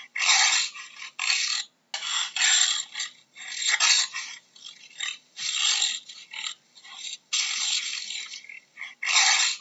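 Jaguar vocalising: a run of harsh, breathy rasps with no clear pitch, each under a second long, separated by short gaps.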